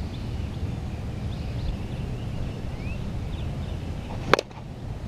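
A ComBat Rocket Launcher softball bat strikes a 44/375 softball once, a single sharp crack about four seconds in. Faint bird chirps sound over a steady low outdoor rumble.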